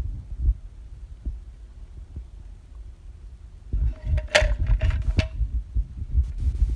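Hands working on a MacBook Pro logic board to remove corrosion: a low handling rumble with light knocks, then a short run of sharp clicks and scraping with a brief ringing tone about four seconds in.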